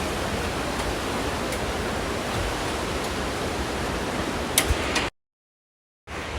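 Steady rushing noise of flowing creek water, with two sharp clicks about four and a half seconds in. The sound then drops out to dead silence for about a second before coming back.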